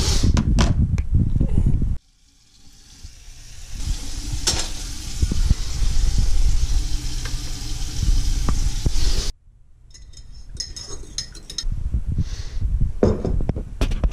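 Kitchen sounds on an electric stove. After a couple of seconds of handling thumps, a steady frying hiss builds up and holds. It stops at a sudden cut, followed by scattered clinks of dishes and a spoon against a mug.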